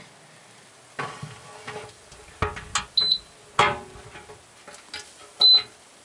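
Irregular knocks and clanks with a short metallic ring inside a Haier countertop dishwasher's tub, over a low steady hiss. Two brief high beeps come about three seconds in and again near the end, the second with the loudest knock.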